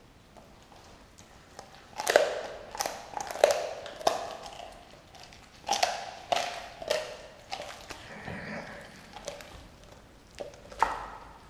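A Doberman chewing and crunching on a whole raw turkey, tearing at skin and bone in quick bursts of sharp crunches, with one last loud crunch near the end.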